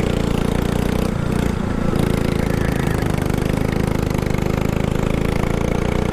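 Go-kart engine running steadily on track. Its note sags briefly about a second in, then climbs back.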